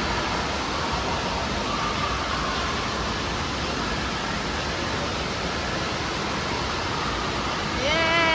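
Steady rushing, splashing water noise of an indoor water park. Near the end, a voice calls out in one long falling cry.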